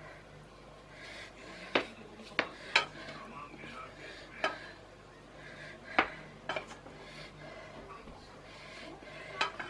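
A metal utensil clinking against a bowl while stirring an egg-and-oil mixture: about seven short, sharp clinks at uneven intervals.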